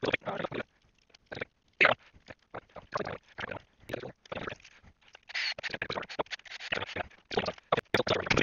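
Handling noise from a plastic electronics case being picked up, turned and shifted on a workbench: a string of irregular scrapes, clicks and knocks, busier in the second half.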